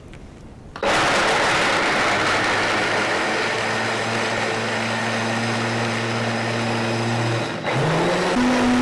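OmniBlend high-speed blender switched on about a second in, running steadily as it grinds soaked almonds in a little water. Near the end the motor dips briefly, then rises in pitch to a higher speed.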